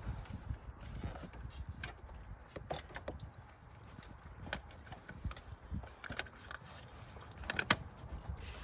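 Scattered, irregular clicks and light knocks of hand tools working on the minivan engine's thermostat housing.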